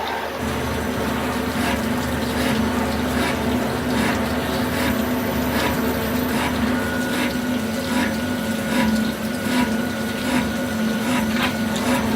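Hardinge Conquest ST-20 CNC lathe running with coolant pouring over the work: a steady hum under a wash of splashing liquid, with short ticks about once or twice a second.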